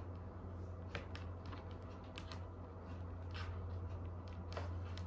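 Scattered light clicks and rustles of insulated wires and multimeter test leads being handled, over a steady low hum; no continuity beep sounds.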